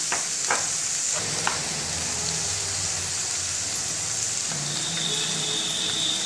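Carrot sticks sizzling steadily in hot mustard oil in a kadai, with a few light clicks in the first second and a half. A thin, high, steady tone joins about five seconds in.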